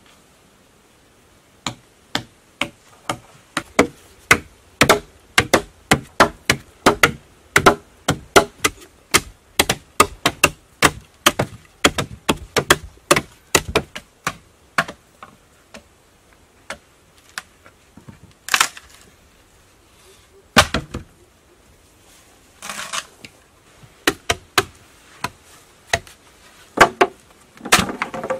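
A blade chopping into green bamboo poles, with sharp strikes at about two to three a second through the first half. It then slows to scattered single knocks, one of them louder, as the cut sections are handled.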